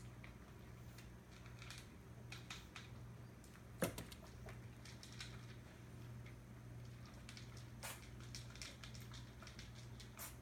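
Faint scattered taps and scratches of kittens' paws on a hard floor and cardboard boxes, with one sharper knock about four seconds in, over a steady low room hum.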